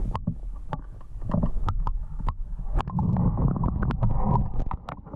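Muffled low rumble and water noise from a camera submerged in an ice-fishing hole as it is moved up through the water, with a scatter of sharp clicks and knocks. The rumble is heaviest a few seconds in.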